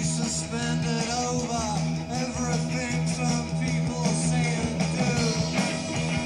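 Rock band recording with electric guitar, bass and drums, in a psychedelic post-punk style, with wavering melodic lines over a steady bass.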